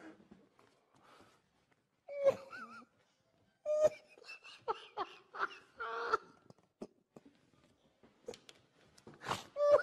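A man laughing helplessly in short, high-pitched bursts, with pauses between them.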